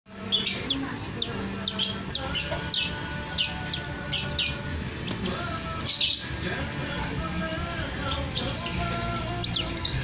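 Young domestic chick peeping loudly and repeatedly, high cheeps that arch and fall in pitch, two or three a second for the first few seconds and again near the end; the calls of a chick held by a hand and then seized by an owl.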